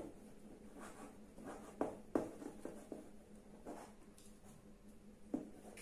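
Chalk writing on a blackboard: a row of short, separate scratching strokes as a word is written out, over a faint steady hum.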